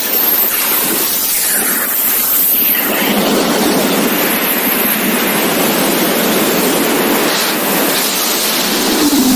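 Loud, steady rush of wind blasting over an action camera's microphone in wingsuit flight.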